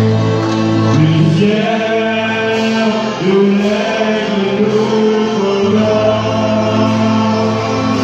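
A male vocal group singing a gospel song in harmony through microphones, holding long chords that shift together every second or two.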